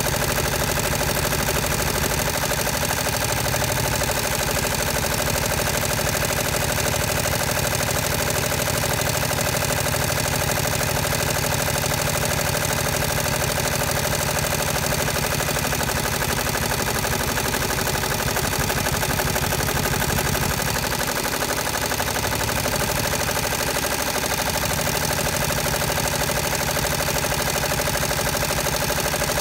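Multi-needle embroidery machine running steadily, its needle stitching a monogram into quilted fabric in a fast, even rhythm.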